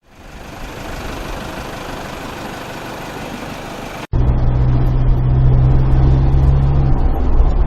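A steady, hissy sound fades in, then about four seconds in it cuts sharply to a loud, steady low drone of an off-road vehicle's diesel engine running.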